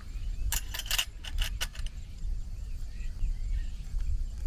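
Food and gear being handled: a quick run of light clicks and metallic clinks about half a second to a second and a half in, over a low steady rumble.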